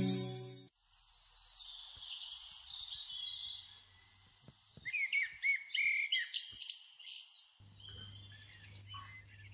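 Birds chirping and singing: short, high whistled calls and trills, busiest about five to six seconds in.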